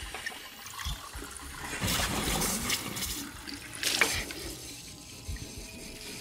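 Water running from a bathroom tap and splashing into a sink basin as hands are washed under it. The splashing is heaviest in the middle, with one sharp loud splash at about four seconds.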